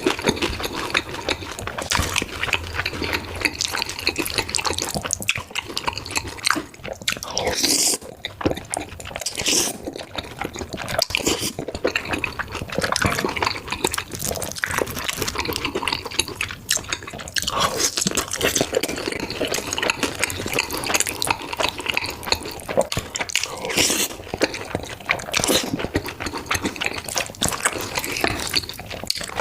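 Wet eating sounds of black bean noodles being slurped and chewed, with many quick wet clicks and smacks.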